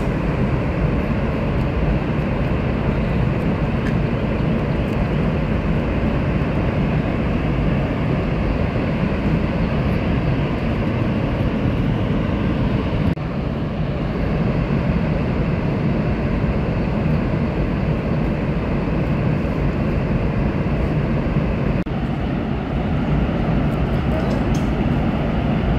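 Water pouring through the open spillway gates of the Sardar Sarovar Dam: a loud, steady rushing of falling water as floodwater is released. There is a brief dip about halfway through.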